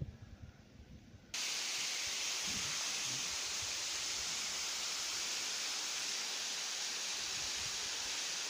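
Waterfall pouring into a pool: a steady, even rushing hiss that cuts in suddenly about a second in, after a quieter opening with only faint low rumble.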